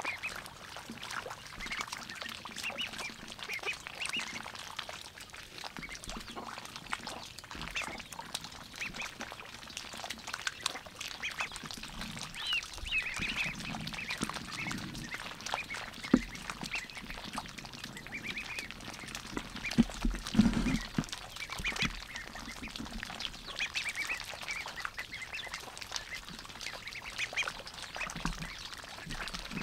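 A group of domestic ducklings peeping in short, high calls while they dabble for food in a muddy puddle. Steady small wet clicks and slurps come from their bills working the water and mud. There is a sharper knock about halfway through.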